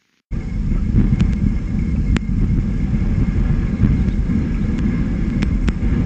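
Steady low rumble of wind buffeting an outdoor microphone, with a few faint sharp clicks. The sound cuts in a moment after the start, following a brief dropout.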